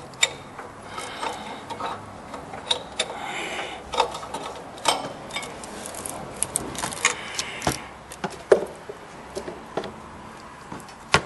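Scattered metallic clinks and knocks of a ratchet and slotted oxygen-sensor socket being handled among the engine parts and exhaust manifold, with a few sharper knocks in the second half.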